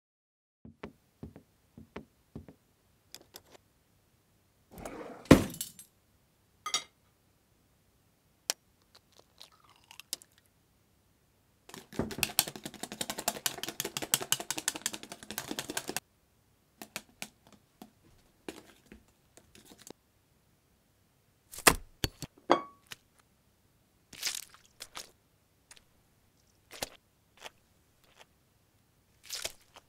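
Kitchen food-preparation sounds: scattered clinks and knocks, one loud thump about five seconds in, then about four seconds of rapid whisking of egg in a glass bowl, followed by more scattered knocks as dough is handled and kneaded on a board.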